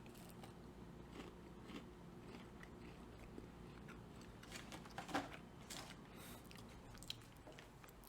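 Faint crunching and chewing of a frosted apple Pop-Tarts Crisp, a thin crunchy cracker, in irregular bites, loudest about five seconds in.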